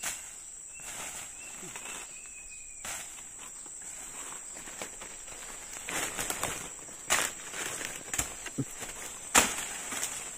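Footsteps and rustling through thick undergrowth, with a few sharp cracks in the second half, over a steady high-pitched insect drone.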